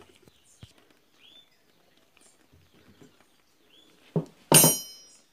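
A steel wrench put down among other metal hand tools: a short knock, then a loud metallic clank that rings briefly, about four seconds in. Faint bird chirps in the background.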